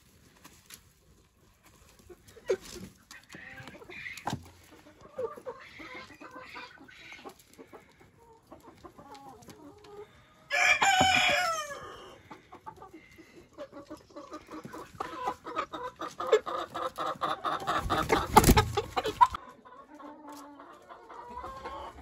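Chickens clucking at a basin of dry mash feed, with faint rustling of a gloved hand stirring the feed at first. About ten seconds in, one bird gives a loud drawn-out call that falls in pitch. From about fourteen seconds the clucking grows busier and louder, with a sharp knock near the end.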